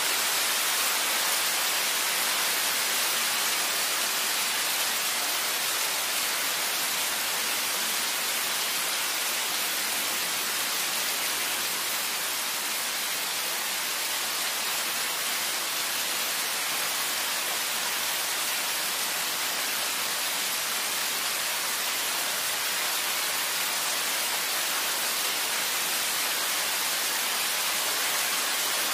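Recorded rain sounds: a steady, even hiss of rainfall.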